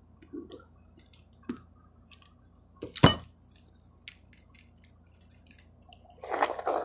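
Eating balut duck eggs: small clicks and crackles of eggshell being tapped with a spoon and peeled, with one sharp click about three seconds in. Near the end come wet mouth sounds as an opened egg is sucked and bitten.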